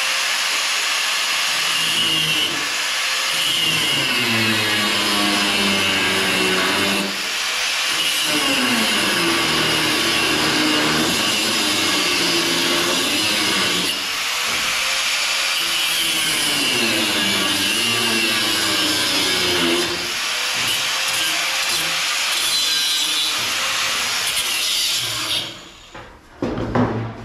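Angle grinder cutting a piece of steel down by about a quarter inch: a steady loud hiss of disc on metal, the motor's pitch sagging and recovering as the disc bites. It stops a couple of seconds before the end.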